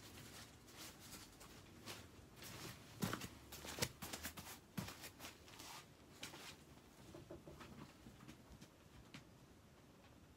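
Plastic tarp crinkling and rustling under stockinged feet, with a run of sharper clicks and knocks loudest about three to five seconds in, then fading to a few scattered ticks.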